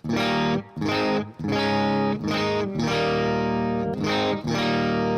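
Electric guitar on its neck pickup, a Mojo Goldfoil humbucker, played through a Kemper amp profile: a run of about seven chords, each struck and left to ring, the last one sustaining.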